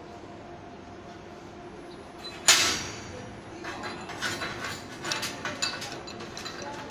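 A laser-cut black steel disc set down onto the cut steel sheet with one sharp metallic clank about two and a half seconds in, followed by a string of lighter clinks and scrapes as the pliers shift the disc over the plate.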